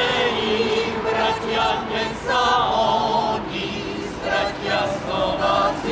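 Mixed choir of men's and women's voices singing a song in phrases, with short breaks between them.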